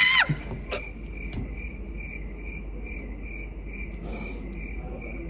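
Cricket chirping: a steady run of short, high chirps, a little under three a second.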